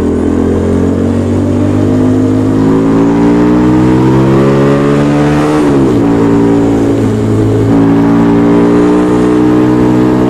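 Motorcycle engine under acceleration, its pitch climbing steadily as the revs build. A little past halfway the revs drop quickly as it shifts up a gear, then they climb again.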